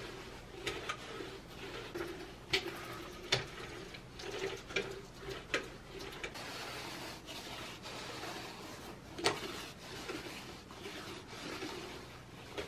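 Scattered light clicks and knocks of small objects being handled, over a low steady murmur; the sharpest knock comes about nine seconds in.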